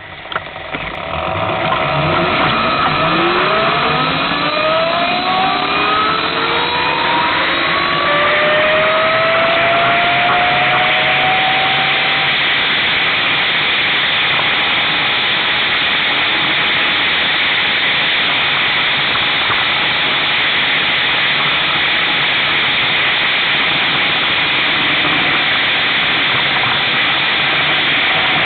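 2009 Brammo Enertia electric motorcycle pulling away: its motor and drivetrain whine rises in pitch as the bike accelerates over the first ten seconds or so, then levels off. A loud, steady rush of wind on the microphone at riding speed takes over.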